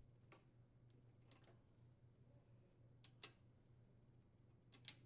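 Near silence broken by faint metallic clicks of a socket wrench working the rocker arm adjuster set screws on a small engine's cylinder head: two single ticks early, then a quick pair of clicks about three seconds in and another pair near the end.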